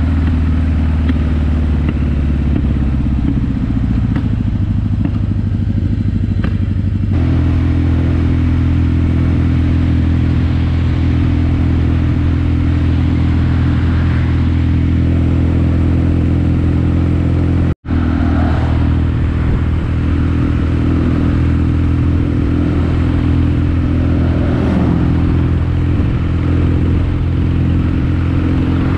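Kawasaki KZ750 motorcycle engine running under way. Its note falls as the bike slows over the first several seconds, then runs steady at a new pitch after an abrupt change about seven seconds in. The sound drops out for an instant about eighteen seconds in.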